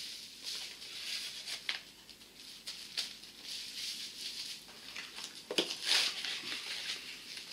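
Rustling of packaging with scattered small clicks and knocks as equipment is handled and refitted in its packaging, with a louder knock and rustle about three-quarters of the way through.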